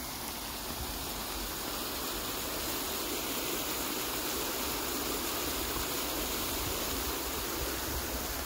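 Fountain water jets splashing into a stone basin: a steady, even rush of falling water.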